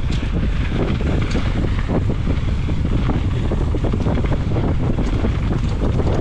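Wind rushing over an action camera's microphone on a mountain bike descending a dirt singletrack, with tyre noise on dirt and frequent short rattles and clicks from the bike over bumps in the trail.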